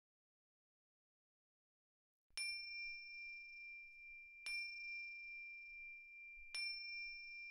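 Silence, then a small bell struck three times about two seconds apart, each strike ringing on with a clear high tone.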